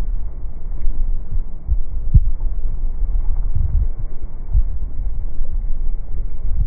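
Waves crashing against a wall in strong wind, heard mostly as a loud low rumble with irregular thuds from wind buffeting the microphone.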